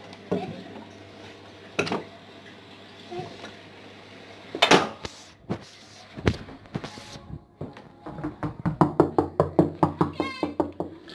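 A fist knocking fast and repeatedly on a wooden door, about five or six knocks a second, starting about eight seconds in. Before that there are scattered thumps and rustling of movement.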